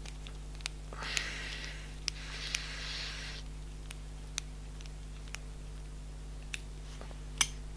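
Faint scattered clicks and a soft rustle as a pillow-ball screw is driven into an RC car's steering knuckle with a hex driver, over a steady low hum.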